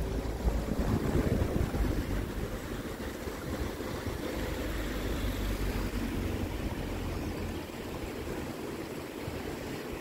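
Steady low rumble with a rushing hiss, easing off slightly in the second half.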